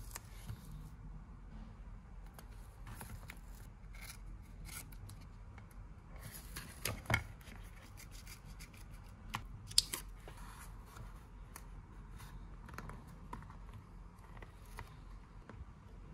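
Small hand-work sounds: scattered light clicks, scratches and rubbing as small tools and parts are handled, with two sharper clicks about seven and ten seconds in.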